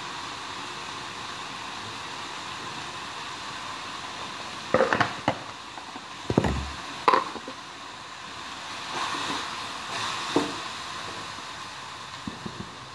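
Food frying in a wok over a gas flame with a steady sizzle. About halfway there are a few sharp knocks and clatters. Near the end a wooden spatula stirs and scrapes in the wok with small clicks.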